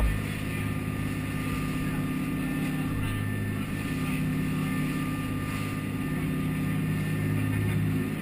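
Dive boat's engines running steadily under way, a constant low drone with a faint steady whine above it.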